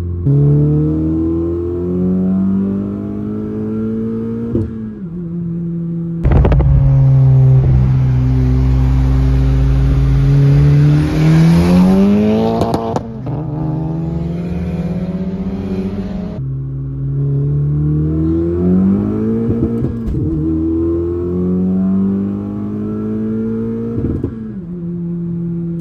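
Honda Civic Si's 1.5-litre turbocharged four-cylinder accelerating hard through the gears, heard from inside the cabin. The engine note climbs and then drops at each upshift, several times. From about 6 s to about 16 s a louder stretch carries heavy wind and road rush.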